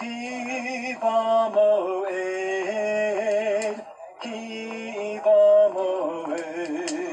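A man's solo liturgical chant, sung in long held notes with a wavering vibrato, in two phrases with a short break for breath about four seconds in.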